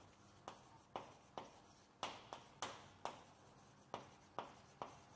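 Chalk writing on a chalkboard: a string of short, sharp taps and scratches, about two a second, as the chalk strikes and drags across the board.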